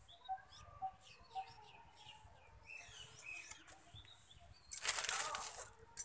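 Small birds chirping, with a short tone repeating about twice a second during the first second and a half. Near the end comes a loud rustle lasting about a second, then a sharp click.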